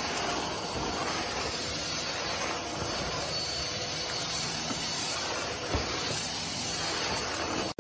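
Vacuum cleaner running with a steady, even hiss and a faint high whine.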